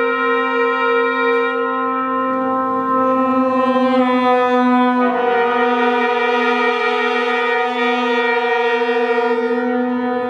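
Small chamber ensemble of clarinet, trumpet and trombone holding long sustained notes that waver and beat slightly against each other. About halfway through, the chord shifts as a new note enters just below the upper one.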